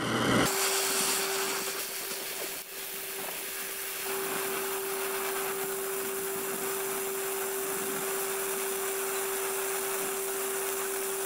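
Oxy-acetylene welding torch flame hissing steadily as it melts a weld puddle along thin steel strips, starting abruptly about half a second in. A steady, even tone runs under the hiss throughout.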